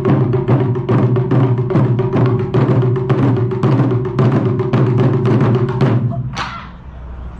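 Japanese taiko drums played by an ensemble: a fast, dense run of sharp strikes, several a second, over the deep ring of the large barrel drums. The drumming stops about six seconds in.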